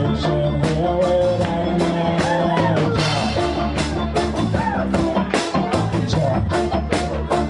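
Live reggae band playing, with violin, bass guitar and guitar over a steady beat, including some gliding bowed notes.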